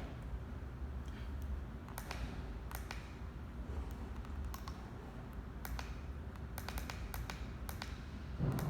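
Front-panel buttons of a Full Gauge TC900E Log controller clicking as they are pressed to set the hour, about a dozen short irregular clicks over a low steady hum.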